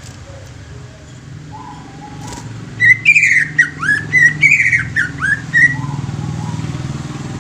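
Cucak ijo (greater green leafbird) singing a rapid run of about a dozen loud, clear whistled notes with quick rising and falling slides, lasting about three seconds from just before the middle, with a few fainter lower whistles before and after. A steady low hum runs underneath.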